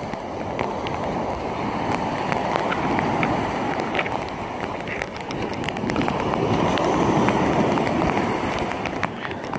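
Surf washing up a sand beach in a storm, with wind rushing over the microphone; the noise swells and eases, and small ticks are scattered through it.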